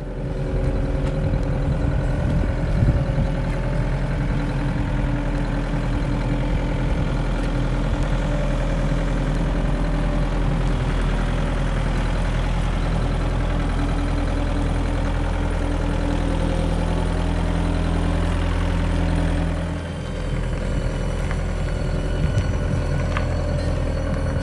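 Forklift truck engine running steadily while lifting a suspended marine engine on a chain, with a brief dip in the sound about 20 seconds in.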